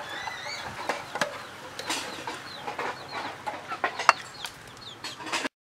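Birds chirping with short high calls, mixed with sharp clinks of a metal ladle against a pot and bowl as soup is served; the loudest clink comes about four seconds in, and the sound cuts off abruptly near the end.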